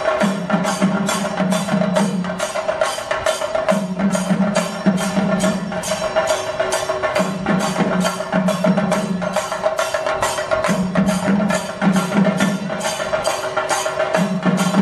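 Chenda drums beaten with sticks in a fast, steady beat of about four strokes a second, with hand cymbals ringing through, the drumming of a Kerala chenda melam ensemble. A deeper drum tone comes in for about two seconds at a time and drops out, over and over.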